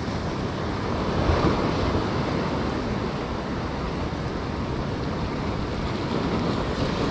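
Ocean surf washing steadily onto the beach, with wind on the microphone; the wash swells a little louder about a second in.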